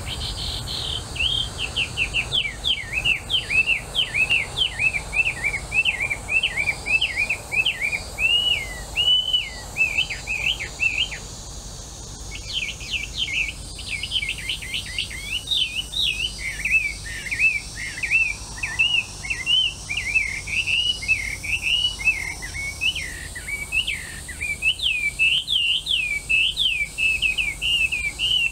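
Melodious laughingthrush (hwamei) singing a long, fast run of varied whistled notes that swoop up and down, breaking off for about a second halfway through and then resuming.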